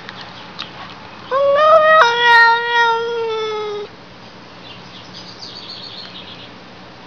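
Tabby cat giving one long, loud meow lasting about two and a half seconds, its pitch dropping a step partway through and then sliding lower until it stops.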